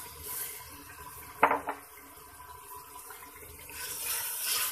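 Water poured from a jug into a pressure cooker pot of mutton and tomato masala, stirred with a wooden spatula. There is one sharp knock against the pot about one and a half seconds in, and the water noise swells again near the end.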